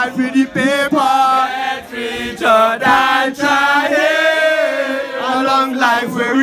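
A man singing a melodic, chant-like dancehall vocal line into a handheld microphone, with long held notes in the middle.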